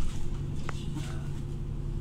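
Steady low drone of a bus engine and road noise heard from inside the moving bus, with one short faint squeak less than a second in.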